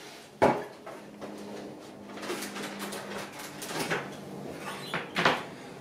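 A kitchen cupboard door opened and shut: a sharp knock about half a second in, fainter knocks and rummaging after it, and another knock near the end.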